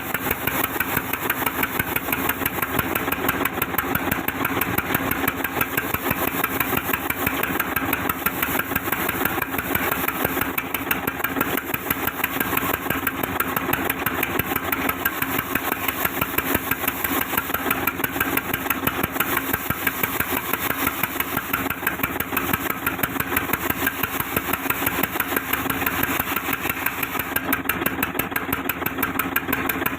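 Sawmill saw machine running steadily, a dense mechanical drone with a fast, regular pulsing and a low hum.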